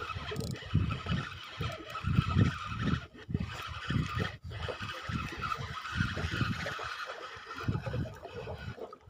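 Spinning fishing reel being cranked to bring in a hooked fish, a steady whirring under heavy wind buffeting on the microphone.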